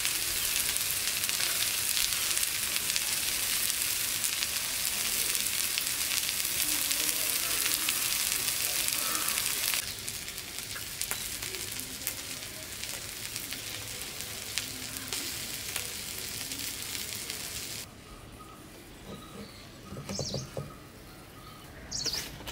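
Fish fillets coated in green masala sizzling and frying in oil on a flat griddle. The sizzle drops in level about ten seconds in and again near eighteen seconds, and a few soft knocks come near the end.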